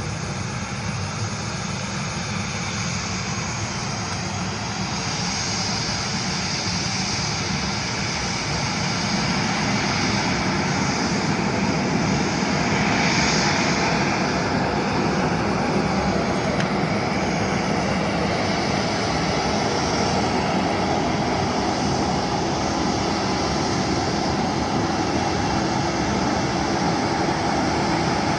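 Airliner engines running, a steady rushing noise with a high whine that grows louder over the first dozen seconds and then holds.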